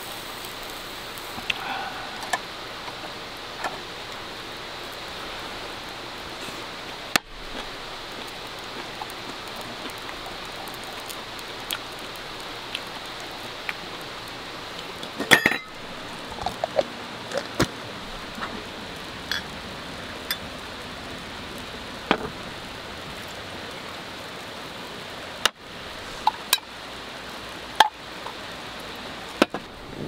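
A steady hiss with scattered light clinks and a few sharper knocks, broken by several brief drops where the sound cuts.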